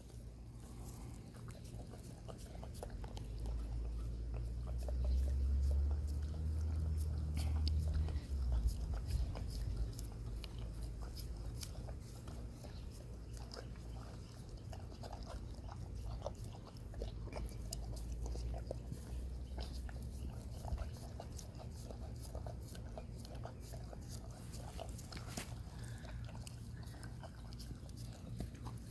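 A dog's small, scattered mouth clicks and licks as it noses at a cup of dog ice cream, over a low rumble that swells a few seconds in.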